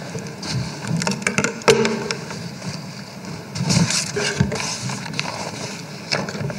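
Background noise in a large hall: scattered sharp clicks and knocks, the loudest about two seconds in, over a low murmur and rustle.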